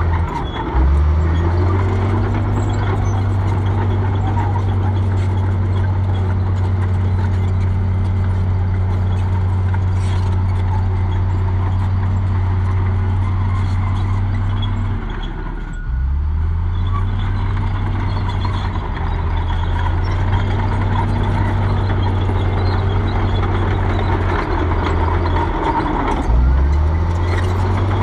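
Komatsu crawler bulldozer's diesel engine running hard while pushing dirt. The revs drop and climb back up three times: about a second in, halfway through and near the end.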